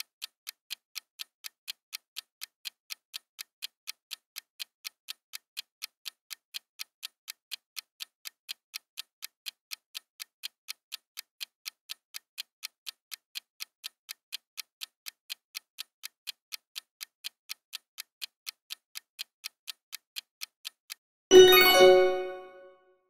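Countdown-timer sound effect: a clock ticking steadily, about three ticks a second, then a loud bright chime near the end that rings out for over a second, signalling that time is up.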